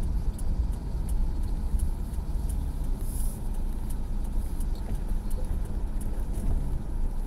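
Steady low rumble of a car driving slowly on a wet road, heard from inside the cabin, with faint light ticks scattered through it.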